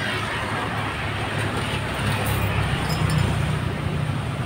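Passing road traffic: motorbikes and a car going by, a steady low engine rumble that grows louder about halfway through.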